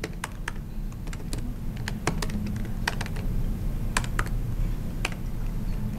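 Typing on a laptop keyboard: irregular key clicks as code is entered, over a steady low room hum.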